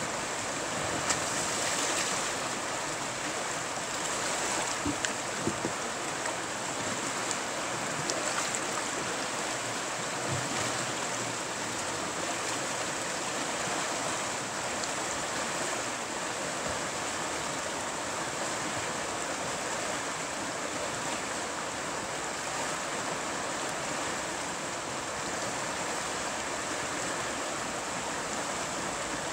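Steady rush of river water pouring through a small rapid, with a few short sharp sounds in the first ten seconds.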